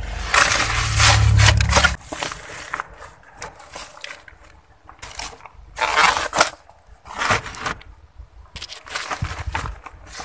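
Close handling noise on the phone's microphone with a low rumble for about the first two seconds, then separate bursts of rustling and scraping as it moves among plastic crates, sacks and rubbish bags.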